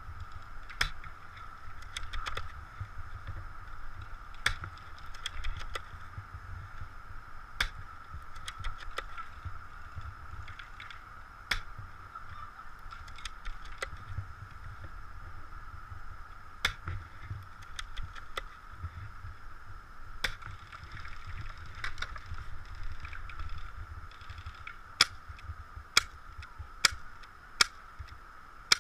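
Airsoft gun shots: scattered sharp cracks over the low rumble of the wearer moving, with four louder single shots about a second apart near the end. A steady faint high hum runs underneath.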